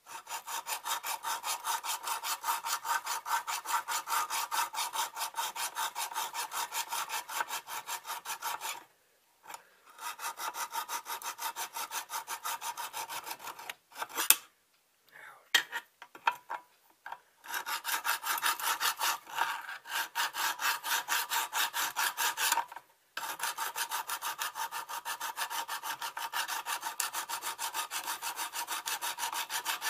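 Hand file scraping back and forth on the steel tang of a knife, about four quick strokes a second with a few short pauses and one sharp click about halfway through. The filing scratches up the tang so the epoxy for the handle grips better.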